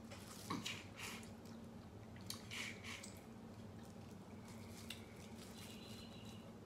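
Faint mouth sounds of eating snow crab: a few scattered wet smacks and chewing clicks over a low steady hum.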